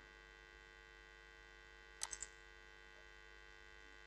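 Near silence with a faint steady electrical hum; about two seconds in, three quick computer mouse clicks.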